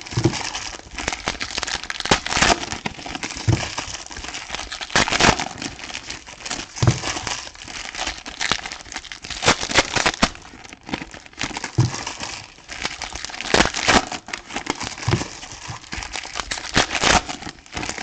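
Plastic shrink-wrap on a trading card box crinkling and crackling in irregular bursts as it is handled and pulled off.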